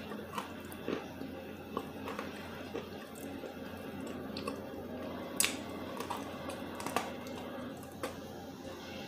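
Crunching and chewing of a dry chunk of edible clay: about ten sharp, short crunches at irregular intervals as bites break off and are chewed, the loudest a little past halfway.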